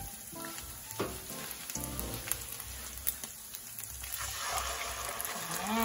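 Sliced burger patties with onion and garlic sizzling in a nonstick frying pan. The sizzle grows fuller after about four seconds, and a few sharp clicks come through it.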